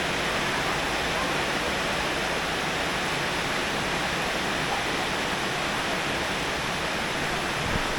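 Heavy rain falling: a steady, unbroken hiss.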